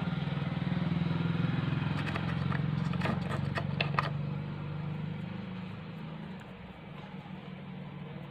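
An engine running steadily with a low, pulsing hum, fading away about six seconds in; a few light clicks and taps around the middle.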